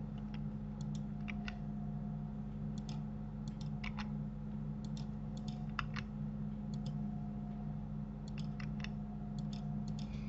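Irregular clicks of a computer mouse and keyboard, some in quick pairs, as someone works at a computer. A steady low electrical hum runs underneath.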